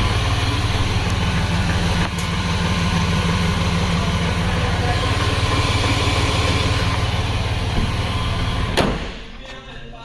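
Chevy Express van engine idling steadily with its new fan clutch fitted, no longer knocking. A single sharp thump near the end, after which it goes much quieter.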